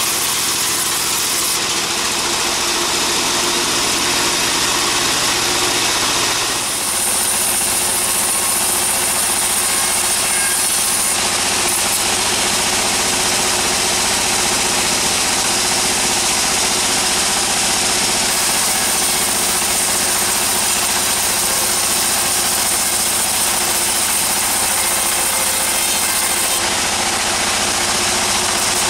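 Sawmill band saw machine and its engine running steadily, with a hiss that changes character several times.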